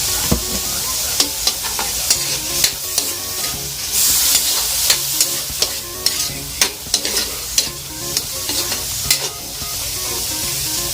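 Shelled mussels frying in a pan with oyster sauce and soy sauce, with a steady sizzle. They are stirred, and the utensil clicks and scrapes against the pan many times until near the end.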